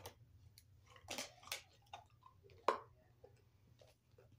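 A plastic water bottle being picked up and drunk from: scattered crackles and clicks of the plastic, the sharpest a little under three seconds in, with faint swallowing.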